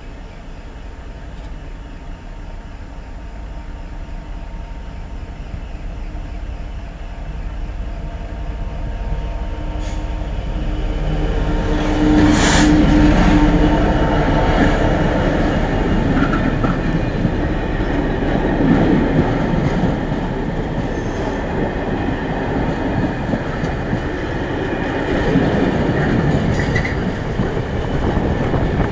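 Class 66 diesel-electric freight locomotive approaching and passing close by, growing louder until it is alongside about twelve seconds in, followed by its train of flat wagons rolling past on the rails.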